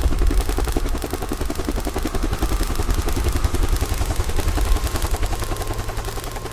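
Fast, even rotor chop of a helicopter over a low engine rumble, fading away near the end.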